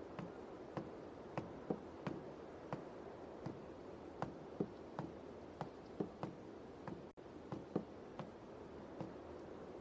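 Faint steady background hiss with irregular soft ticks, roughly one or two a second, and a brief dropout about seven seconds in.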